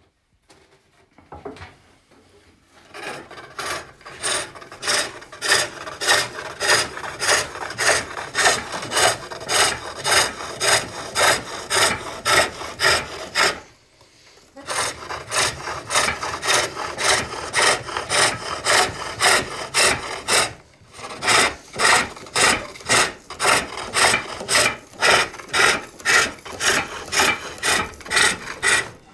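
Steel turning tool cutting wood on a foot-treadle pole lathe: a fast, regular rasping stroke as the tool bites on each downward treadle stroke. The cutting starts about three seconds in, stops for a moment about halfway, and pauses briefly again near two-thirds through.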